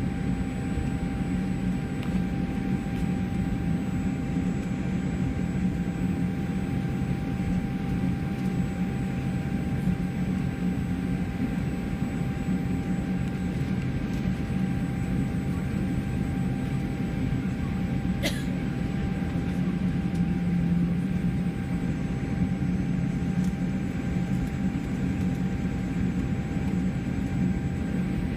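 Steady cabin noise inside a Boeing 787 Dreamliner taxiing, its Rolls-Royce Trent 1000 engines running at low thrust as a low rumble with a steady hum above it. A single short click about eighteen seconds in.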